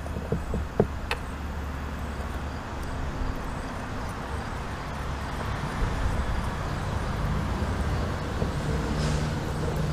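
Road traffic noise, a vehicle passing and swelling slowly over several seconds. A few light metal clicks in the first second or so as screws are set into a steering-box cap.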